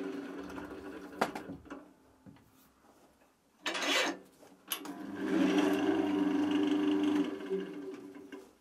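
Wood lathe running with a wooden blank spinning in its chuck, dying away over the first couple of seconds. A click and a short harsh rasp come about three and a half seconds in. The lathe runs steadily again from about five seconds and fades out near the end.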